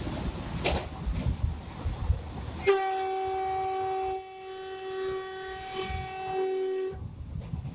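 Cab noise of the Train 18 (Vande Bharat Express) electric trainset running at speed, a rumble with clicks from the track. About a third of the way in the train's horn sounds, a steady pitched blast of about four seconds that dips briefly partway through, and then the running noise comes back.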